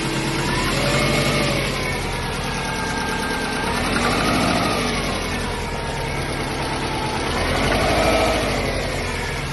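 Subaru EJ205 turbocharged flat-four engine idling with a knock, the throttle blipped briefly three times so the pitch rises and falls. The owner calls the knock a terrible sound and suspects piston slap or damaged crankshaft bearings.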